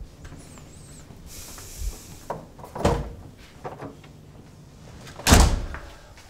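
Hotel room door shutting with one heavy thud about five seconds in, after a few lighter knocks.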